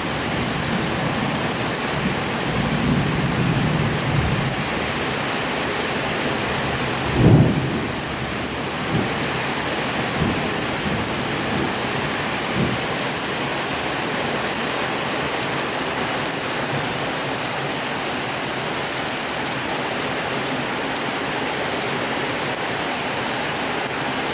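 Heavy rain pouring steadily, a dense even hiss. A low rumble comes a couple of seconds in. About seven seconds in there is one loud, short low thump, then a few fainter ones over the next several seconds.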